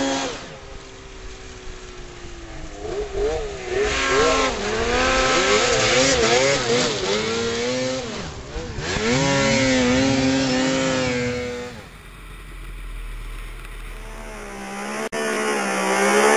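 Snowmobile engines revving hard, the pitch swinging up and down quickly with the throttle and then holding high, with abrupt changes in the sound at cuts between short clips.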